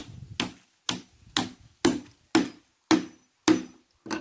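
Hammer driving nails into wooden planks: a steady run of about nine blows, roughly two a second, each with a short ring.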